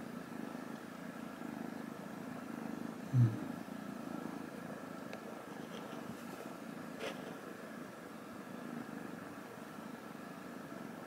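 Kitten purring steadily, a low continuous rumble, while its head is scratched. A single dull thump about three seconds in is the loudest moment.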